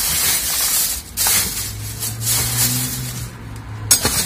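Plastic trash bags rustling and rubbing as a long iron pipe is pushed in among them inside a trash container, with a sharp knock of the pipe near the end.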